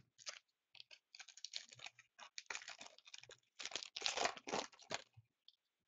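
A hockey card pack wrapper being torn open and crinkled: a string of irregular crackly rustles that stops about five seconds in.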